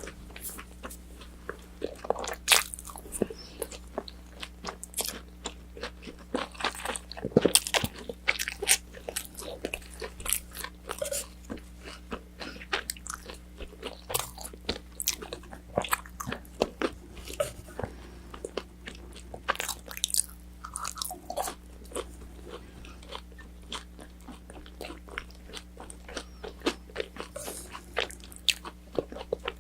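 Close-miked chewing of crispy fried orange chicken: many small crunches and crackles in quick, irregular succession.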